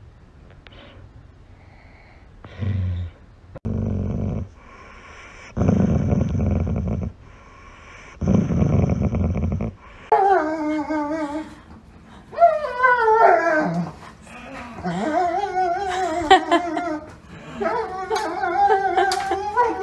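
A dog growling low in four short bursts, then from about ten seconds in a second dog whining and howling in high, wavering cries: an excited greeting.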